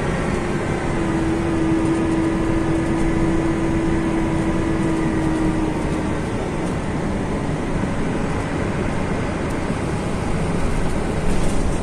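Cabin noise of an Irisbus Euroclass coach under way: its Iveco Cursor 8 six-cylinder diesel and Voith Diwa automatic drivetrain make a steady rumble along with road noise. A steady whine is heard alongside and fades out about halfway through.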